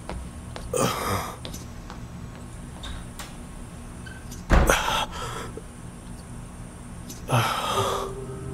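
A man breathing heavily through an oxygen mask: three loud breaths, about a second in, in the middle with a low thump, and near the end, over a low steady hum.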